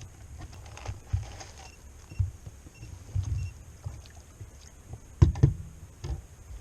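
Irregular knocks and bumps on a plastic fishing kayak's hull and gear, the loudest a pair of thumps about five seconds in, over a low wind rumble on the microphone.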